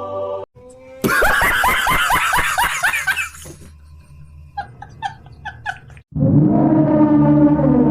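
A string of short sound-effect clips: about two and a half seconds of rapid cackling laughter, a few faint quick chirps, then a loud held tone starting about six seconds in.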